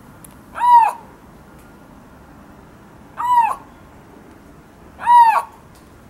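Siberian lynx calling: three short cries, each about half a second long, rising then falling in pitch, a couple of seconds apart.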